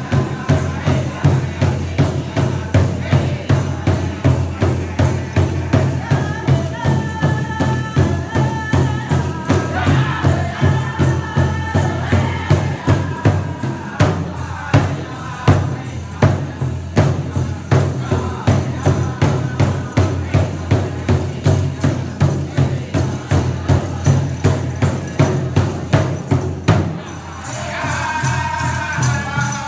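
Powwow drum group performing a grand entry song: several drummers strike a large powwow drum together in a steady beat of about two strokes a second, under high-pitched group singing. Near the end the drumbeat drops away briefly while the singing carries on.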